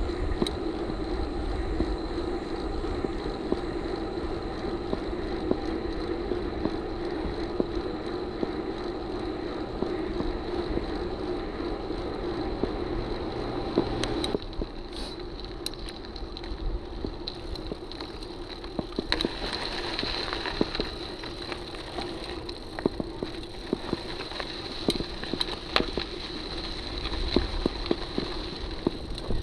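Canyon mountain bike ridden on a paved road, with a steady rush of tyre and wind noise. In the second half it rides over a dirt road, and frequent sharp clicks and rattles come from the bike jolting over the rough surface.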